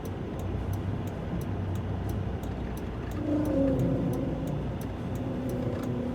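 Semi-truck's diesel engine running steadily, with a faint regular ticking about two or three times a second.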